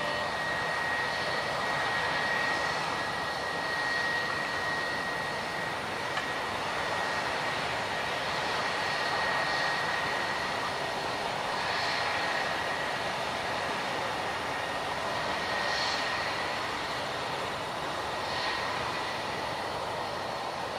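Jet airliner engines running steadily: a constant high whine over a broad, even engine noise, with no clear rise or fall.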